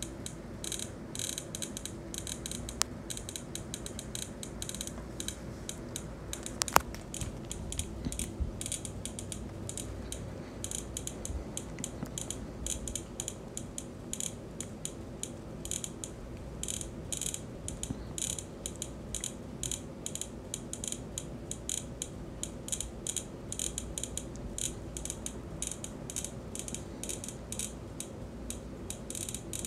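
Rapid, irregular electronic ticks from a live lightning-strike map, each tick marking one lightning strike detected somewhere in the world, several a second. There is one sharper, louder click about seven seconds in.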